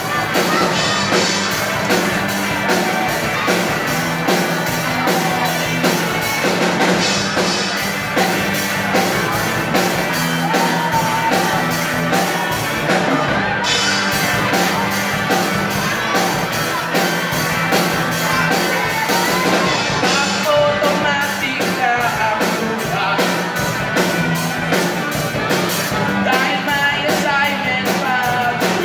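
A live rock band playing: a male singer over amplified electric guitars and a drum kit keeping a steady beat.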